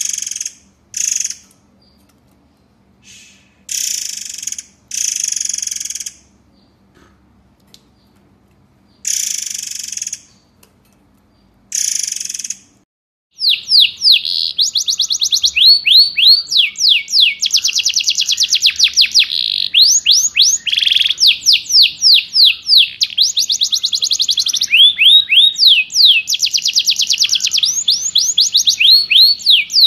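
Songbird calls of the harsh, rapid-fire 'tembakan' type. A few separate short, harsh buzzy calls come first. About halfway through, a dense, continuous volley of high, down-slurred notes begins, each repeated many times a second.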